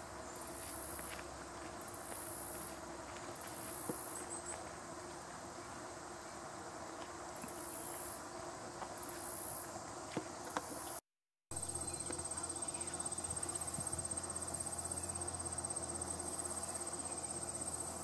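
Insects singing: a very high buzz in repeated bursts about a second apart. After a short break partway through, it becomes a steady high trill.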